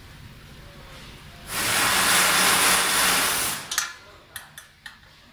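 A loud, even hiss-like rush lasting about two seconds, followed by four sharp metallic clicks as bolts and the steel foot of a stand are handled during assembly.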